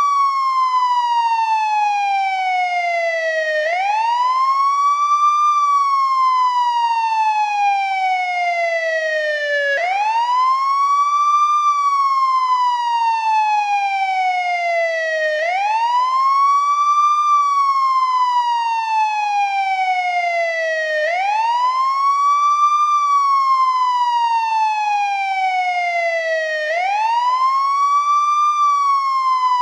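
Old-model American ambulance wail siren, cycling steadily. Each cycle is a quick rise in pitch and then a long, slow fall, repeating about every six seconds.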